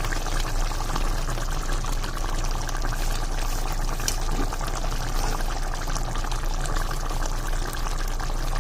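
Chicken curry simmering in a pan: a steady bubbling hiss with faint little pops.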